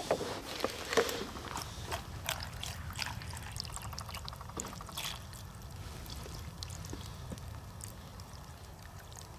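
Water being poured, trickling and splashing, with scattered sharp clicks over the first five seconds and a quieter, even trickle after that.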